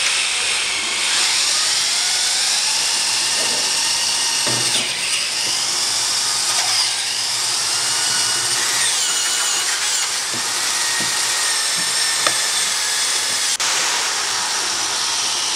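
Hand-held power drill boring through the wall of a red polypropylene pipe with a hole cutter in a guide bushing, cutting the branch hole for a saddle outlet. It runs steadily, with a whine that slides up and down in pitch as the cutter bites.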